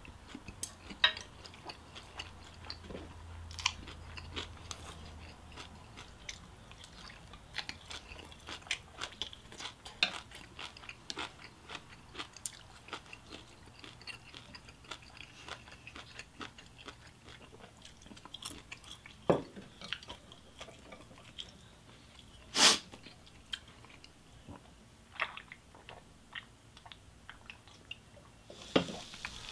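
A person chewing and biting food, with scattered short clicks through it and one louder sharp click about three-quarters of the way through.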